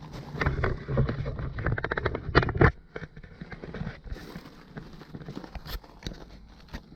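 Hand work on a garden tractor's throttle cable parts: a dense run of clicks and rattles, ending in a fast even string of clicks, then scattered light clicks and knocks.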